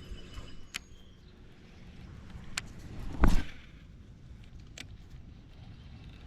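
Knocks and clicks of handling in a fishing kayak: a few sharp clicks and one heavy knock about three seconds in, over a low rumble.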